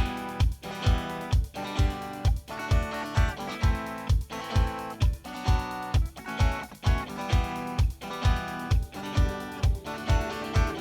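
Electric guitar recorded direct through a line input, playing chords over a rock backing track. A steady kick drum beats about two times a second under the guitar.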